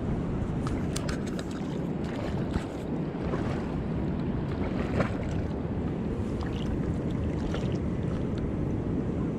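Steady rushing of river water with wind buffeting the microphone, broken by a few faint clicks.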